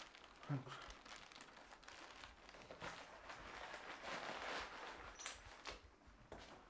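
Faint rustling and crinkling of cloth or paper being handled, with a dull thump about half a second in.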